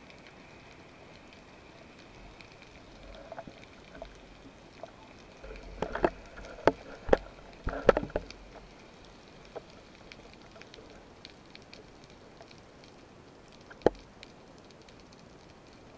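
Underwater hiss with a cluster of sharp knocks and clicks about six to eight seconds in, and one more near the end. The knocks come from a speared amberjack and the speargun being handled right at an underwater camera.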